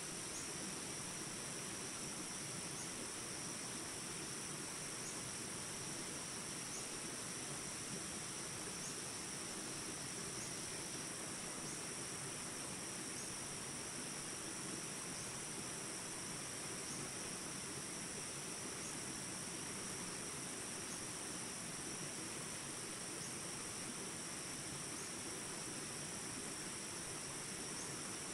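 Steady rush of flowing stream water, with a continuous high-pitched insect chorus, like crickets, running over it.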